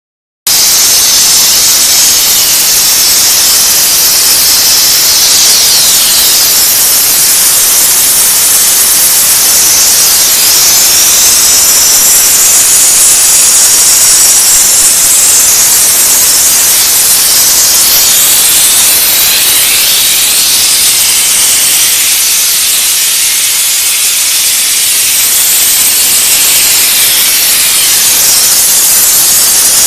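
Diesel-heated steam car wash machine running, with a loud, steady high-pitched hiss of pressurised steam.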